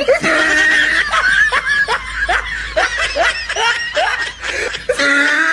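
Snickering laughter: a quick run of short rising 'heh' sounds, about two or three a second.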